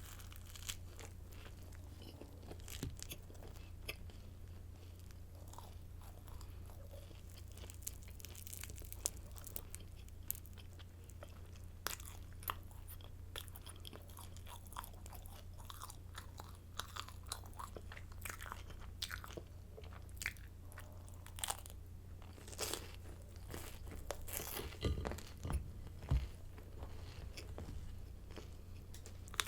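Close-miked crunching of hard, crisp garlic baguette sticks being bitten and chewed, a run of sharp crackles that gets denser and louder towards the end, with some heavier bites about three-quarters of the way in. A steady low hum runs underneath.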